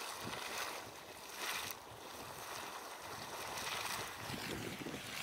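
Small geyser spouting and splashing, water spurting in uneven surges over a steady hiss.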